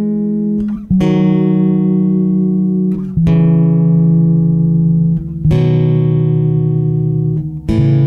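Background music of slow plucked-string chords: a new one is struck about every two seconds and left to ring, each a step lower in pitch than the last.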